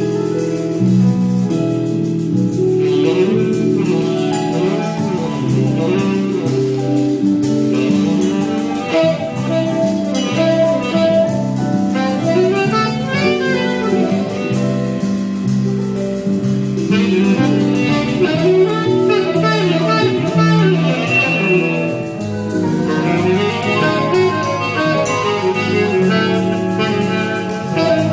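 Jazz big band playing, with saxophones among the instruments.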